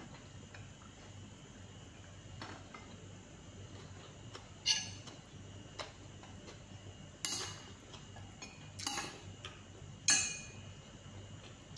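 A person eating with her hands from a plate: scattered short, sharp clicks and clinks of fingers, food and plate, with mouth sounds. About half a dozen, a second or more apart, the loudest near the end.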